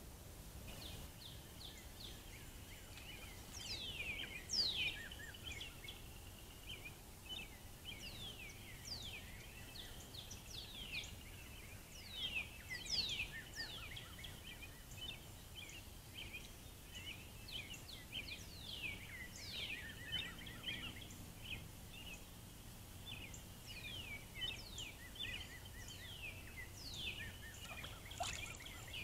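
A dense chorus of small animal calls: many quick, high falling notes repeating over a constant high trill, with no pause, over a faint steady hiss.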